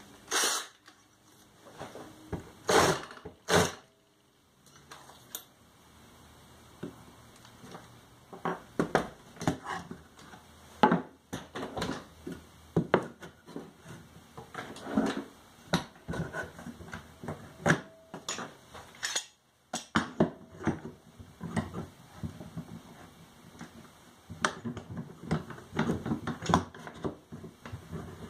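Irregular knocks, clicks and clatter of tools and pieces of wood being picked up and set down, the loudest knocks near the start, about three seconds in and about eleven seconds in.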